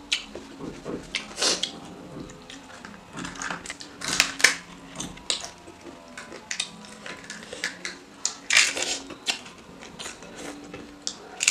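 Close-miked mukbang eating sounds: noodles being slurped and chewed, with wooden chopsticks knocking against a glass bowl. Several louder slurps stand out, near the start, around four seconds in and around eight and a half seconds in.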